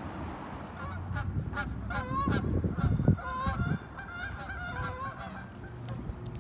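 A small flock of geese flying overhead, honking over and over in short repeated calls that trail off near the end. A low rumble rises under the calls in the middle.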